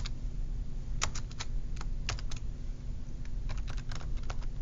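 Computer keyboard being typed on: scattered single keystrokes in two short runs, one about a second in and another from about three seconds in, over a low steady hum.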